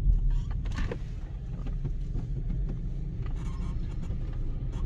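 Steady low rumble of a car driving through city traffic, heard from inside the car, with a few faint clicks.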